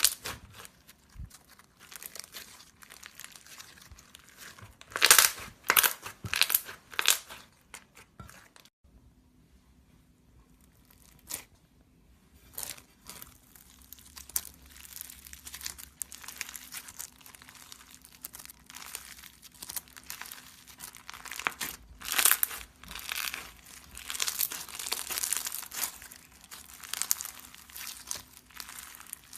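Crunchy slime being squeezed and pressed by hand, giving dense crackling and popping in uneven bursts. The crackling drops away briefly about a third of the way in, then returns, louder toward the end.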